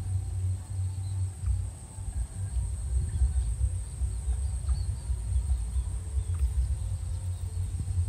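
Wind buffeting the microphone, an uneven low rumble, over a steady high-pitched whine, with a few faint chirps.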